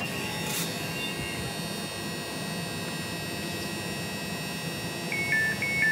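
Steady electrical hum and whine made of several held tones. About five seconds in, an alternating two-tone electronic beeping starts, high and low notes repeating about twice a second.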